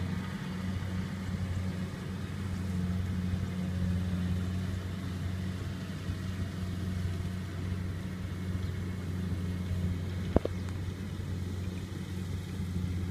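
Combine harvester engine running steadily in a rice field, a low even drone. A single sharp click about ten seconds in.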